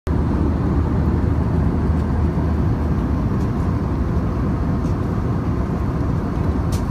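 Airliner cabin noise in flight: a steady low rumble of jet engines and rushing air. A few faint light clicks sound over it, the last near the end.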